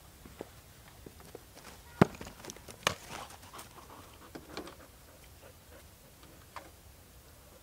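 A dog panting as it walks about, with scattered light clicks and knocks. Two sharp knocks about two and three seconds in are the loudest sounds.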